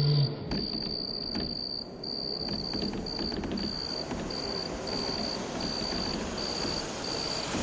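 Crickets chirping: a high, even chirp repeating about one and a half times a second over a low steady rumble.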